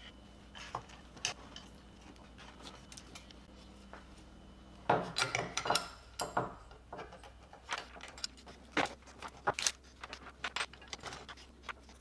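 Small metal screws and printer parts clinking and clicking as they are handled and fitted during 3D printer assembly, with a busy flurry of clatter about five seconds in and scattered clicks after.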